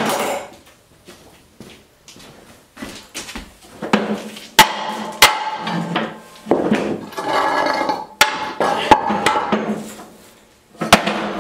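Hammer knocking carriage bolts out of a stair-climbing hand truck's metal frame: a handful of sharp metal strikes, mostly in pairs, with clatter between them.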